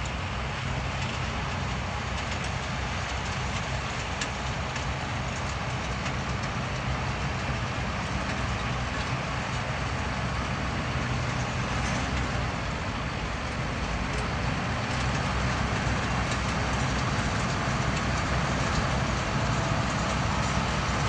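Tractor engine running steadily, getting a little louder in the second half.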